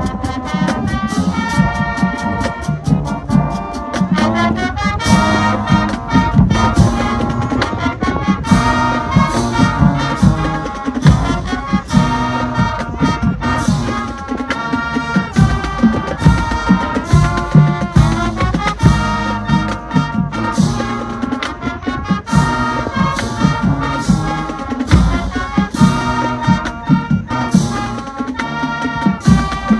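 High school marching band playing: the brass section sounds full chords and a melody over frequent, regular drum hits from the drumline.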